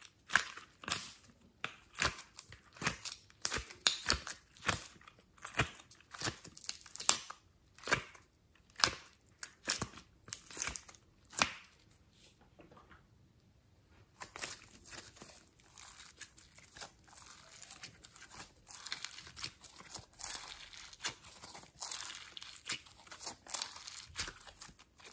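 Slime squished and kneaded by hand: a run of sharp wet clicks and pops, a short pause about halfway, then denser sticky crackling as the slime is squeezed and stretched.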